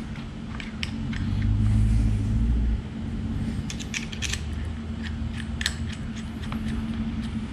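Scattered light clicks and taps of small metal parts being handled and fitted on a quad's handlebar thumb-throttle housing. A low rumble runs through roughly the first two seconds, over a faint steady hum.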